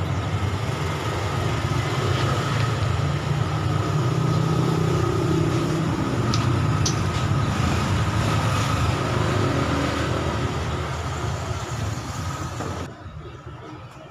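A motor vehicle's engine running steadily close by, a loud low rumble with a faint steady whine over it, which eases a little and then stops abruptly near the end.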